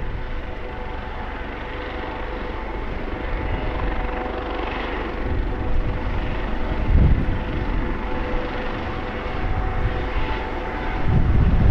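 Airbus Helicopters AS365/565 Dauphin running on the ground with its rotor turning: a steady turbine whine over a low rotor beat, slowly getting louder, with heavier low rumbles about seven seconds in and again near the end.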